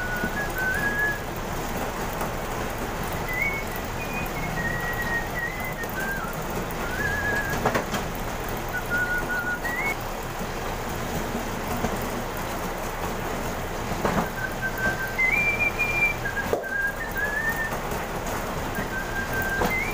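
Motor-driven dough roller running with a steady noisy whir as a thick sheet of pandesal dough is fed through its rollers, with a few knocks. Over it a high tune of short notes jumping in pitch is whistled.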